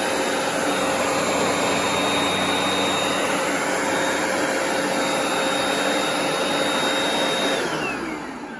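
Hoover PowerDash Pet carpet cleaner running at a steady pitch with a high whine over its suction noise. Near the end it is switched off and the motor winds down, the whine falling in pitch.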